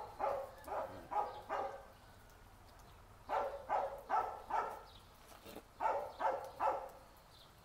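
Dog barking in three quick runs of short barks, about two to three barks a second, with brief pauses between the runs.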